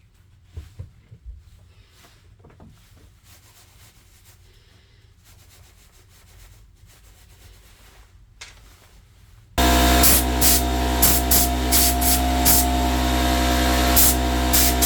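A few faint clicks and knocks of handling, then, near the end, a Bosch angle grinder switches on and runs at full speed: a steady motor whine over a loud rush of air.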